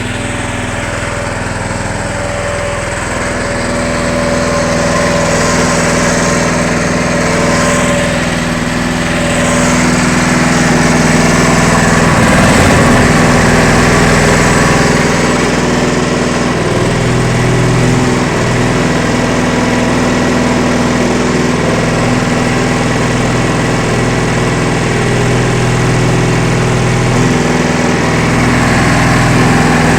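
Gas engine driving the hydraulic pump of a cardboard baler, running steadily while the baler crushes scrap metal barrels, its note shifting a few times.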